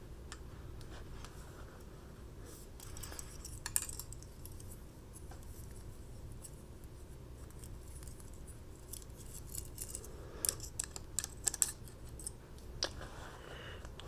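Small folding pocket knives being handled: scattered metallic clicks and clinks of blades and a keyring chain, with a run of sharp clicks near the end, over a low steady hum.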